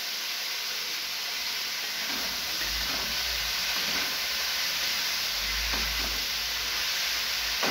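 Chopped green chillies sizzling in hot mustard oil in a metal kadhai as a spatula stirs them, a steady frying hiss.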